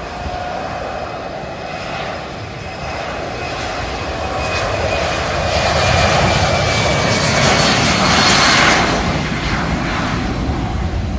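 Business jet's turbofan engines passing by, a high whine over a rush of engine noise that builds to its loudest about eight seconds in and then eases off.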